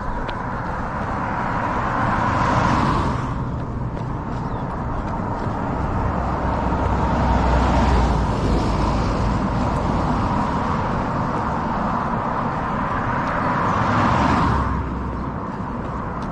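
Road vehicles passing one after another: three swells of engine and tyre noise come and go, about 3 s in, around 8 s and around 14 s, over a steady low rumble.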